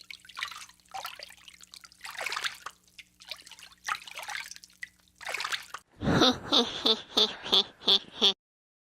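Water splashing and trickling in irregular bursts over a faint steady hum. About six seconds in comes a quicker, louder run of splashes, which then cuts off suddenly.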